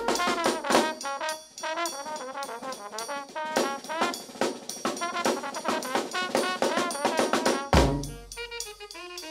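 New Orleans brass band playing live: trumpet, trombone, saxophone and flute lines over a driving snare drum beat, with bass drum and sousaphone. A heavy bass drum hit lands near the end, after which the horns carry on with less drumming.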